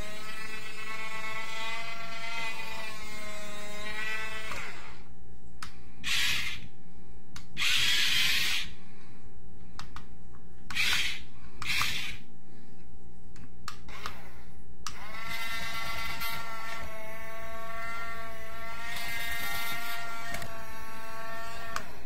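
Small electric gear motors of a toy remote-control excavator whining as they run, with several short grinding rasps in the middle stretch. About fifteen seconds in a motor spins up with a quick rise in pitch and then runs on steadily.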